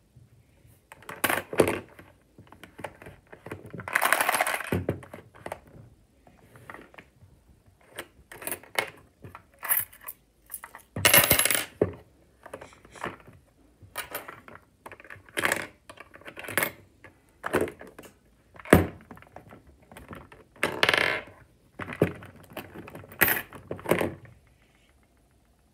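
A Lego candy machine with a coin mechanism being worked by hand. Plastic bricks and a slider click and clack, and coins drop and rattle through the mechanism, with longer rattles about 4, 11 and 21 seconds in.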